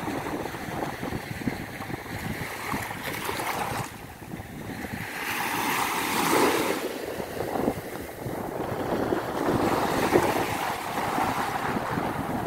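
Sea waves washing onto a beach: a continuous hiss of surf that dips briefly about four seconds in, then swells as a wave breaks between about five and seven seconds in, with wind on the microphone.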